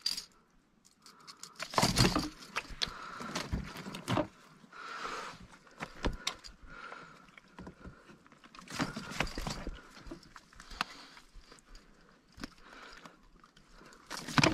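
Smallmouth bass flopping in a landing net against the boat's hull: irregular thumps with net rustle and metal clinks of the lure and pliers, the loudest flurries about two seconds in, around nine seconds in, and at the very end.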